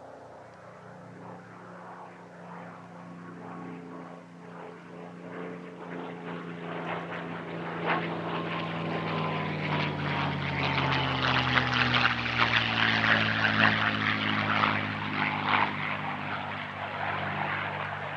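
P-51D Mustang's Packard Merlin V-12 engine on a low flypast: the engine note grows steadily louder as the aircraft approaches, falls in pitch as it goes by about two-thirds of the way through, then eases off slightly.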